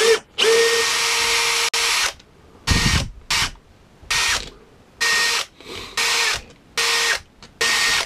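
Cordless drill-driver whining in short bursts, backing screws out of a Jabsco shower sump pump's housing: one run of about a second and a half near the start, then a string of brief spurts.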